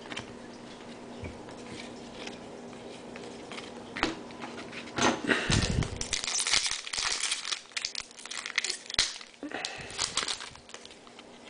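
Foil trading-card pack wrapper being torn open and crinkled by hand, in irregular bursts of crackling from about four seconds in until near the end.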